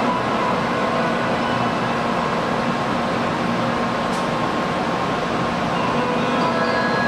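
Shinkansen platform departure melody chimes looping over the steady hum of an N700-series train standing at the platform.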